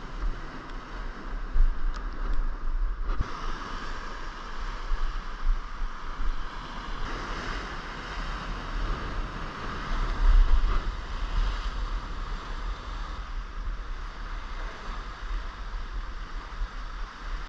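Wind buffeting the microphone in gusts over the wash of sea surf against the rocks, with a single knock about three seconds in.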